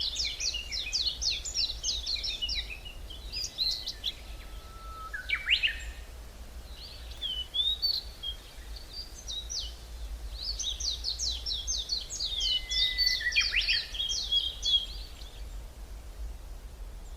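Songbirds singing in a deciduous forest: two long, fast runs of high notes, one at the start and another about ten seconds in, with scattered shorter calls between, over a steady low rumble.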